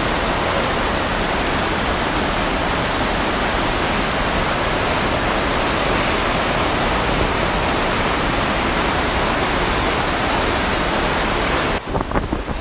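Niagara's American Falls crashing onto the rocks at close range: a steady, loud rush of falling whitewater.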